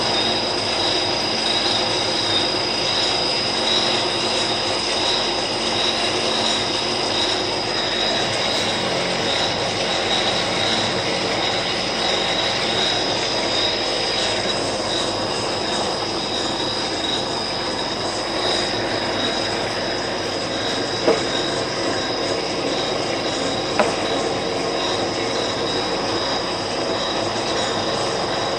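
Monarch lathe running, a steady mechanical whir of motor and gearing with a high, even whine. Two sharp clicks come in the second half, about three seconds apart.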